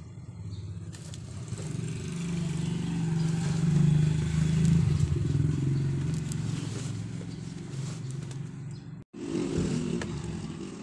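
A motor vehicle's engine passing by, growing louder to a peak about four seconds in and then fading, with denim cloth rustling as the jeans are folded and smoothed. The sound cuts out for an instant near the end.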